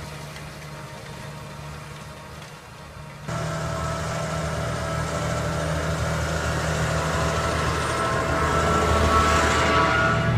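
Case IH tractor's diesel engine running steadily under load while pulling a seven-furrow plough through the soil. The engine becomes louder suddenly about three seconds in and keeps growing louder as the tractor passes close by.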